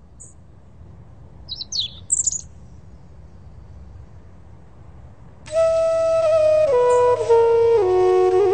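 A few short, high bird chirps, then about five and a half seconds in, background flute music begins: slow, held notes stepping downward.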